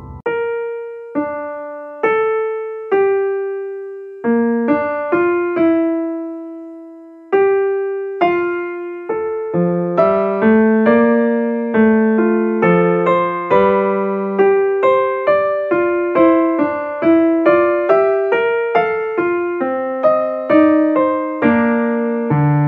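Background music: solo piano playing a slow melody, sparse single notes at first, filling out with lower notes and quicker playing about ten seconds in.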